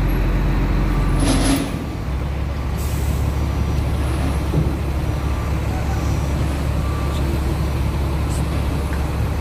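Steady low rumble of heavy diesel machinery and trucks running on a construction site, with a short hiss about a second in.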